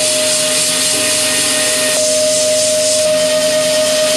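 DATRON CNC milling spindle running an end mill through an aluminium part: a steady, even cutting sound, one strong tone held over a dense hiss.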